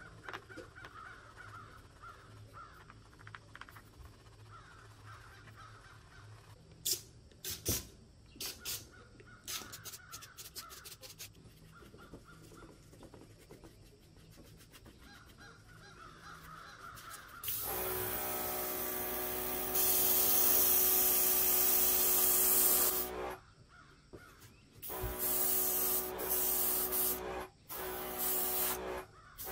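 A brush scrubbing paint stripper over small parts, with faint clicks and taps; then, more than halfway through, an airbrush spraying paint in long hissing bursts over a steady hum, stopping and starting several times near the end.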